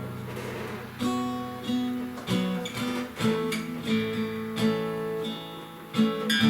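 Acoustic guitar strumming chords at a steady pace as the instrumental close of a worship song, with a louder chord struck near the end.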